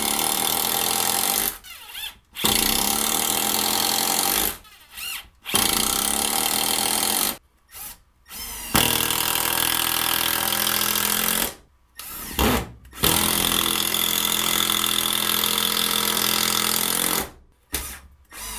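Two 12-volt brushed cordless impact drivers, a Bosch PS41 and then a Milwaukee 2462, drive 3-inch deck screws into a 2x4. Each screw is a run of rapid impact hammering lasting a few seconds, with short pauses between screws. The Bosch's runs are shorter and drive faster, while the Milwaukee's runs are longer because it struggles with the long screws.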